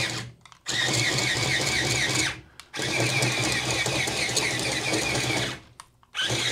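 Disney Spider Bot toy's leg motor and gears running as it walks, in four bursts with short stops between, a steady hum under a fast, even clatter. It is carrying almost a pound of load and keeps walking.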